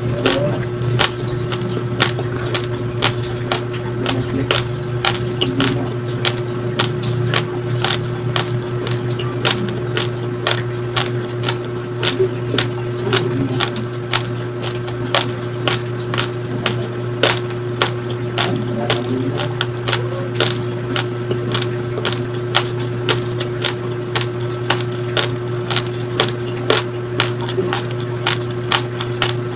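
Close-miked chewing of raw, uncooked white rice: a steady run of sharp, crackly crunches, a few a second, as the hard grains break between the teeth. It plays over a steady low hum.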